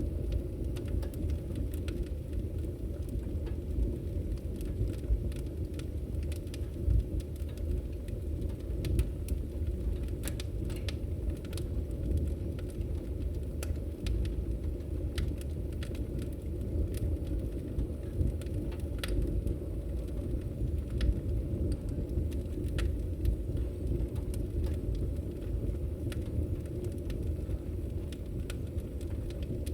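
Wood fire burning in a fireplace: a steady low rumble of flames with frequent scattered sharp crackles and pops.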